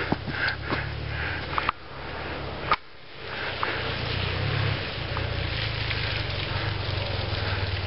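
Motorcycle engine idling with a steady low rumble, dipping briefly about three seconds in before running on.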